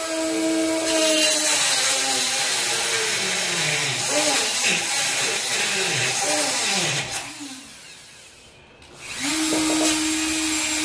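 A high-speed handheld cut-off tool grinding through metal. Its whine drops in pitch again and again as the wheel bites, dies away about eight seconds in, then starts up again at a steady pitch.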